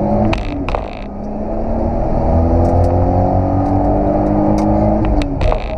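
Toyota Supra Mk3's turbocharged inline-six accelerating hard, heard from inside the cabin, its pitch climbing steadily through a gear. Near the start and again about five seconds in, a gear change brings a brief drop in pitch with a short hiss.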